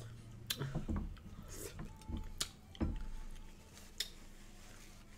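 Quiet eating and food-handling noises at a table of lobster and shrimp: a few sharp clicks and soft knocks, with faint mouth sounds.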